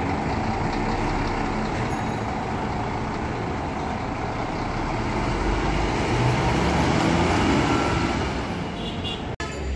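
Scania coach's diesel engine running as the bus drives away, swelling for a couple of seconds near the end and then fading, before the sound cuts off abruptly.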